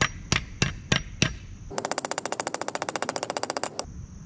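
A claw hammer tapping a step wedge into the top of an axe handle where it sits in the axe head's eye, five quick strikes about three a second. After that comes about two seconds of rapid, even clicking, some twenty a second, that stops abruptly.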